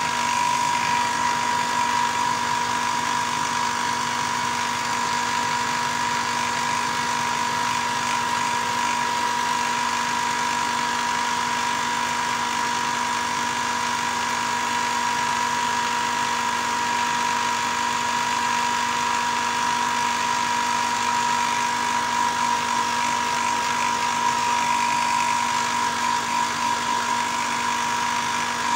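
Small airbrush air compressor running steadily: a constant motor hum with a high whine over an even hiss.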